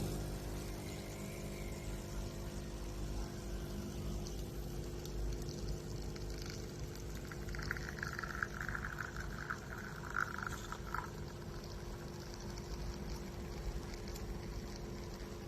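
Espresso machine's pump switching on and running with a steady buzzing hum, pushing water through for a shot. A higher, wavering sound joins it for a few seconds in the middle.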